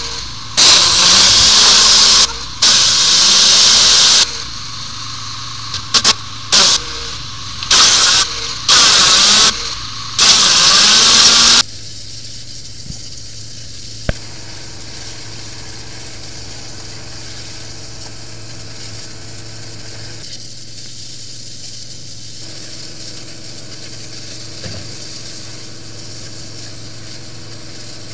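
Engine of a drain-jetting machine running steadily, over which loud rushing bursts switch sharply on and off about seven times in the first dozen seconds; after that only the engine hum is left.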